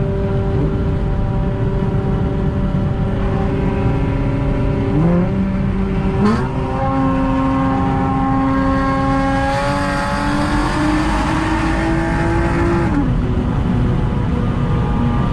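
Honda J35 V6 engine and exhaust heard under way. The steady note steps up in pitch twice, about five and six seconds in, with a sharp click at the second step. It holds at the higher pitch for several seconds, then drops back down near the end.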